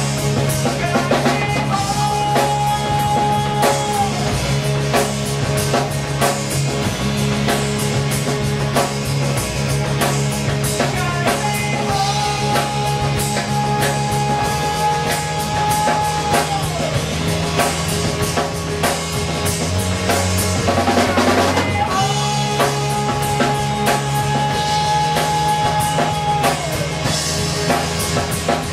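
A rock band plays live: electric guitar over a drum kit keeping a steady beat, with a voice holding a long note three times.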